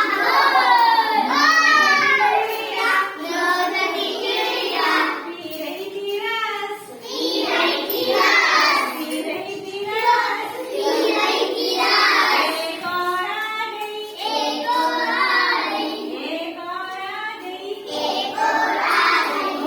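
Children's voices singing a Hindi counting rhyme, line after line with short breaks between phrases.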